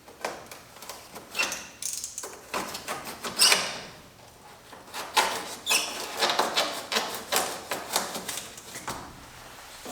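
EPS foam insulation panel being handled and trimmed: irregular scraping, rubbing and tapping, with two short squeaks, about three and a half seconds in and again near six seconds.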